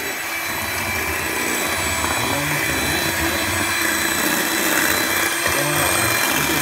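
Electric hand mixer running steadily, its beaters whipping a chocolate and butter cream in a bowl, with a steady motor whine.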